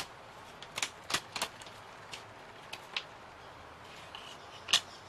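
Thin 3 mm laser-cut MDF pieces being handled and set down on a work mat: a scattered series of sharp, light clicks and taps, the loudest one near the end.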